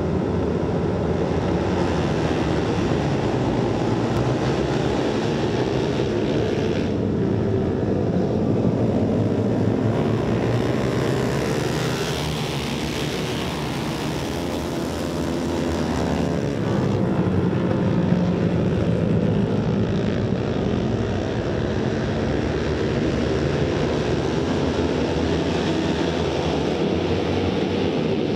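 Several flat track racing motorcycles running together on a dirt oval: a steady engine drone that eases off slightly about halfway through, then builds again.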